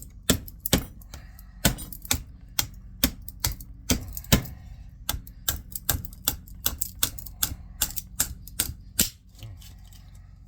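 Quick, irregular metallic taps and clicks, about three a second, from tools worked against the steel housing and magnets of a speed reducer motor being stripped for scrap. The tapping stops about nine seconds in.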